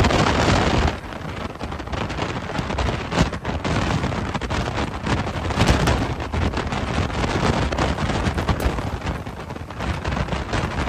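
Hurricane-force wind and driving rain, the wind buffeting the microphone in rising and falling gusts, loudest in the first second.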